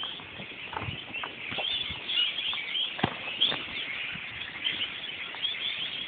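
A large flock of birds chattering in the treetops: a dense, unbroken mass of overlapping high chirps, with a few sharp clicks scattered through it.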